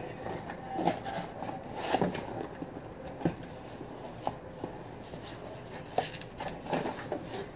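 Small cardboard box being handled and its flaps opened, with rubbing and scraping of cardboard and several sharp knocks.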